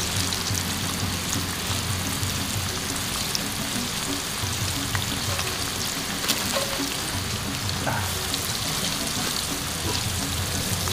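Oil sizzling in a small wok as flour-coated pieces of passion fruit deep-fry: a steady hiss with scattered small pops.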